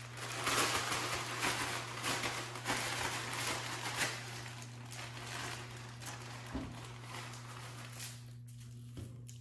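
Plastic coating bag crinkling and rustling as raw chicken is shaken and handled in Shake 'n Bake crumb mix, loudest in the first half and dying down near the end. A steady low hum runs underneath.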